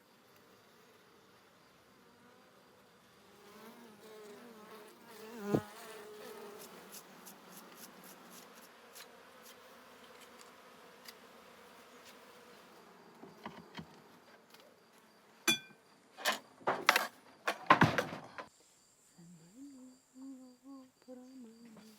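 Honeybees buzzing around an opened hive, with a sharp knock about five seconds in and a quick run of loud knocks and clicks a few seconds before the end.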